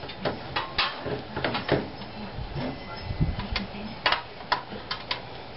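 About a dozen irregular clicks, taps and light knocks, with a few duller thuds, as a wheel hub assembly and its ABS speed-sensor cable are handled and fitted into the steering knuckle.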